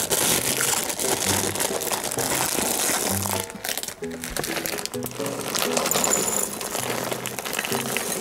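Background music with short plucked bass notes, over loud, close crackling and rustling from a tabby cat's fur brushing against the microphone.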